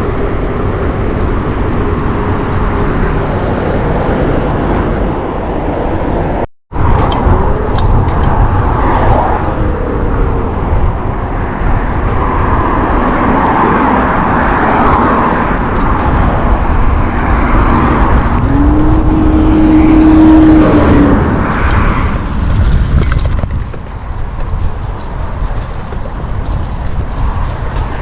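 Road traffic noise, cars passing under a heavy, steady rumble, with a sudden dropout to silence a little over six seconds in.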